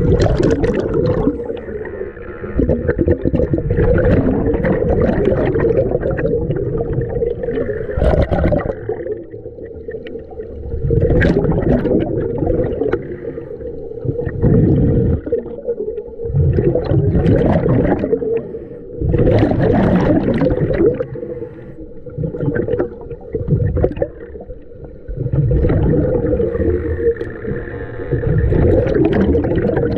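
Underwater sound of a scuba diver breathing through a regulator: loud gurgling rushes of exhaled bubbles every few seconds, with quieter gaps between, over a steady hum.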